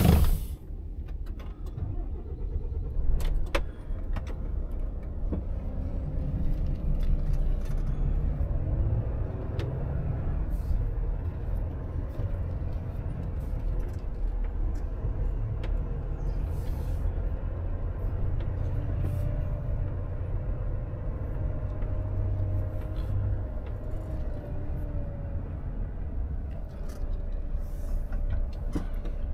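Volvo FH truck's six-cylinder diesel engine running steadily at low speed as the truck manoeuvres, heard inside the cab as a low rumble with occasional clicks and rattles. A brief loud noise comes right at the start.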